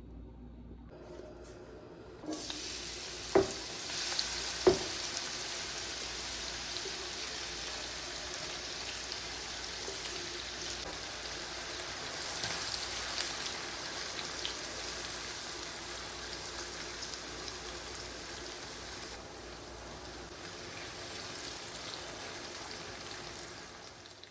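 Food frying in hot oil in a pan, a steady sizzle that starts suddenly about two seconds in, with two sharp clicks shortly after it begins.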